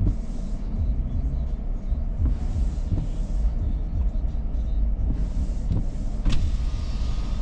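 Inside a car in the rain: a steady low rumble of the car at a standstill or creeping, with the windshield wipers swishing across the wet glass every two to three seconds and one sharp click about six seconds in.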